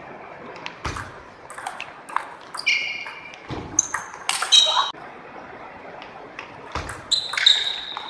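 Large-ball table tennis rally: the 44 mm ball clicking off the paddles and the table in an irregular run of sharp hits. A few short high squeaks cut in, from sneakers on the wooden gym floor.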